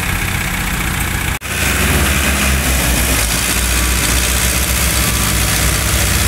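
Heavy diesel engine of a crane or tanker lorry running steadily at low speed with a deep rumble; the sound drops out for an instant about a second and a half in, then comes back with a stronger low rumble.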